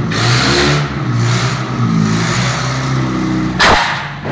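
Forklift engine revving as the forks are driven into a block wall. Near the end there is a single loud crash as the blocks break and fall.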